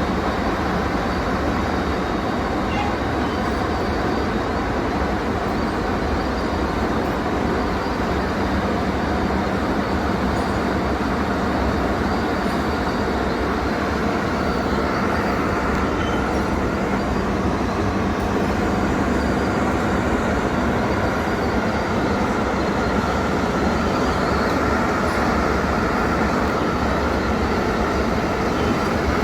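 KU 300/23 bucket-wheel excavator running while mining brown coal: a loud, steady mechanical rumble and clatter with a faint whine above it.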